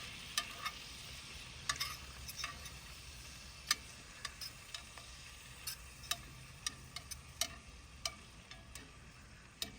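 Eating sounds while tasting sliced grilled venison backstrap: a dozen or so light, irregular clicks and taps, about one every second or less, over a faint low background.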